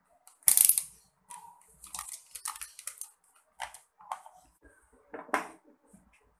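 Handling noise: a loud scrape about half a second in, then irregular scratchy clicks, rustles and light knocks, as of objects and a cord being moved around.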